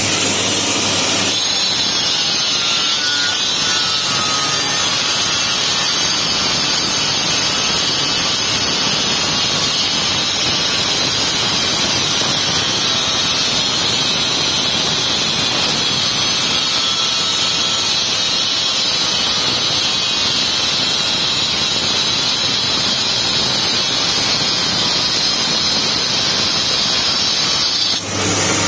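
Handheld electric marble cutter with a cold-pressed segmented diamond blade cutting dry through a granite slab. It makes a steady, loud grinding with a high whine as the blade bites the stone.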